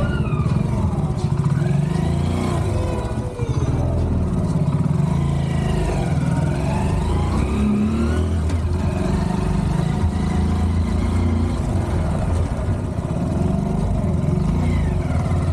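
Motorcycle engine running as the bike is ridden off. It sets up a steady low drone whose pitch rises and falls as it speeds up and slows.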